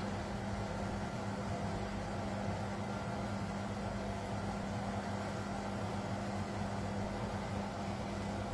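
Steady mechanical hum with a constant low drone that does not change.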